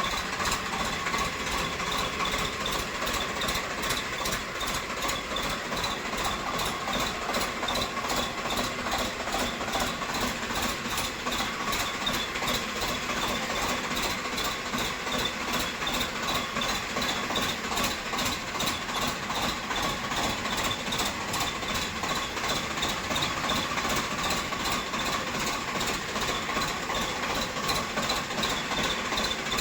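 Tractor diesel engine idling with an aftermarket turbo whistle fitted to its exhaust, giving a strong steady whistling tone over the even pulsing of the engine.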